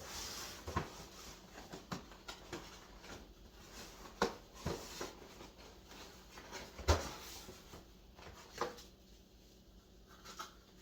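A mailed package being handled and opened by hand: faint rustling of packaging with scattered light clicks and knocks, the loudest about seven seconds in.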